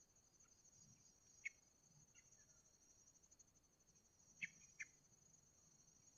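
Faint, steady, high-pitched trilling of insects such as crickets, with a few short sharp chirps: one about a second and a half in and two close together past the middle.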